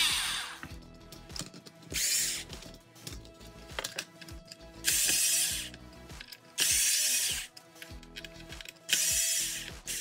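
Cordless drill-driver running in four short bursts, each under a second, as small chassis screws are loosened.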